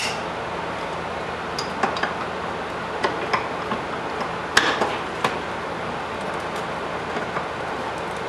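Light metallic clicks and taps, about seven of them scattered over a few seconds, the loudest a little past halfway, as a new fuel filter is handled and seated in its mounting clamp. A steady hiss lies under them.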